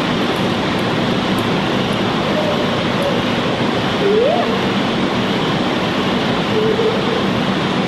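Steady loud rushing noise with a faint low hum under it. A short rising cry comes about halfway through.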